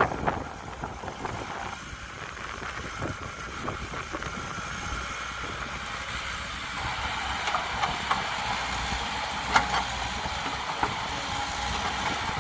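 Caterpillar crawler excavator's diesel engine running steadily as it digs soil and swings a loaded bucket toward the dump truck, with a few scattered knocks and one sharper knock about three-quarters of the way through.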